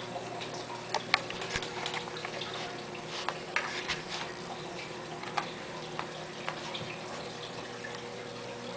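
A kitten's claws and a small plastic toy tapping and skittering on a tiled floor, irregular sharp clicks, busiest over the first two thirds, over a steady background hum and hiss.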